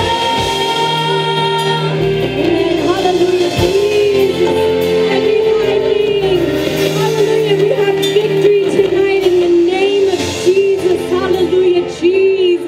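Women singing a praise and worship song into microphones, holding long notes with a wavering pitch, over live band accompaniment.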